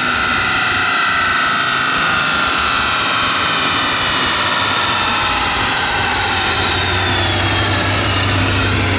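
Ford Mustang GT's 5.0 V8 and the chassis dyno's rollers winding down after a pull. A steady whine slides slowly lower in pitch over a loud rushing noise, and a low steady hum comes in about two thirds of the way through.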